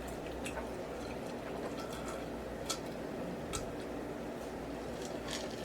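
Faint eating sounds: a few small, scattered mouth clicks and smacks from chewing, over a low steady hum.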